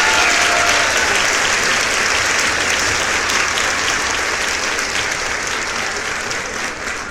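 Crowd applause: dense, steady clapping that slowly fades away toward the end.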